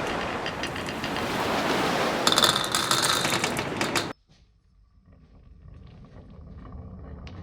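Marbles rolling and clattering along a wooden marble run track: a steady rolling rumble with many clicks, growing busier about two seconds in. It cuts off suddenly about four seconds in, leaving only a faint sound.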